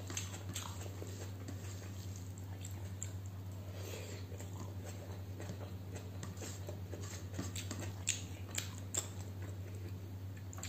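Close-up eating sounds: chewing and wet mouth clicks, with fingers squishing and mixing rice on a steel plate, over a steady low hum. A few sharper clicks come about 8 and 9 seconds in.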